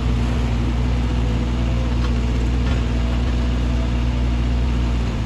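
Diesel engine of a Komatsu mini excavator running steadily at a constant speed while it works, giving a low, even hum.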